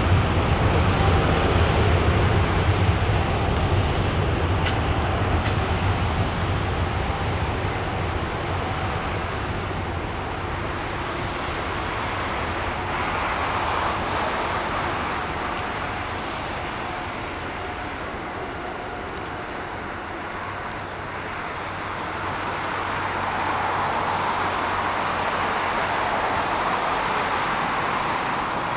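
Boeing 747-8F freighter's GEnx jet engines: a loud, steady wash of jet noise. A deep rumble is strong for the first third and then thins, and the noise swells again about halfway through and near the end.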